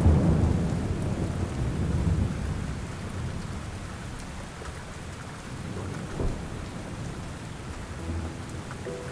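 Thunder rumbling and dying away over the first few seconds, over steady rain; a rain-and-thunderstorm ambience.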